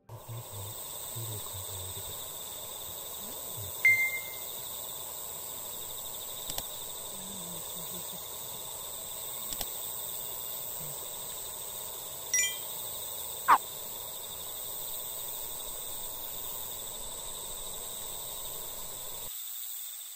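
Outdoor ambience: a steady high-pitched drone with a few short bird calls. There is a sharp call about four seconds in, a brief cluster of notes past the middle, and a quick falling whistle soon after.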